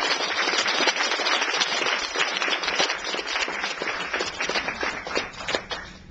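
A small audience clapping, dense at first, then thinning and dying away near the end.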